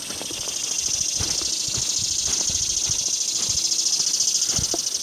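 A high, rapidly pulsing insect buzz that grows louder, over scattered footsteps in the woodland litter.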